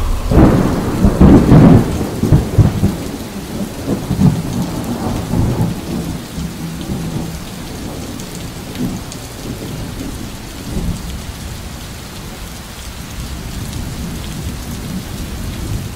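A thunderclap that rolls and rumbles for the first few seconds, dying away into steady rain.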